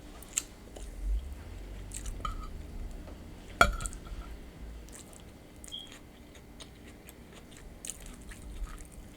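A person chewing and crunching a mouthful of nachos close to the microphone, with scattered wet mouth clicks and one sharp click a little past the third second.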